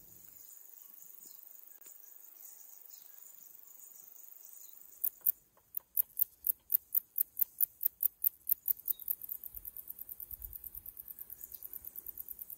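Crickets chirping in summer meadow grass. A faint steady high trill comes first. About five seconds in, a loud run of sharp chirps starts at about three a second, then goes on faster and softer from about nine seconds in.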